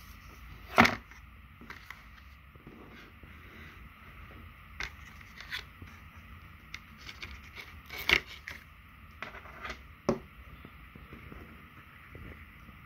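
A smartwatch and its packaging being handled: scattered clicks, knocks and scrapes. The loudest comes about a second in, with others near eight and ten seconds.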